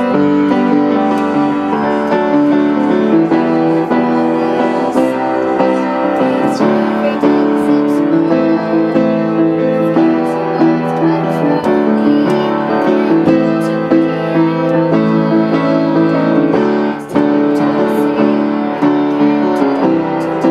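Piano duet played four hands on one keyboard: a continuous stream of many notes at once, with a brief dip about three-quarters of the way through.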